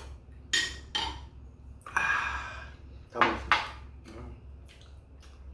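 A person slurping soup from a bowl in a few short sips, then two sharp clatters of the ceramic bowl and spoon set down on the table a little past three seconds in.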